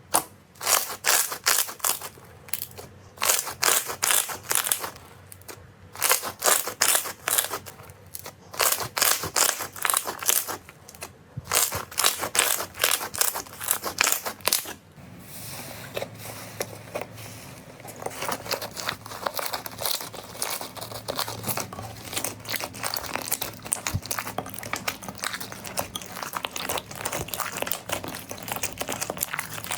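Crunchy slime squeezed and pressed by hand, crackling in quick bursts of pops. About halfway through it turns to a denser, steadier crackle.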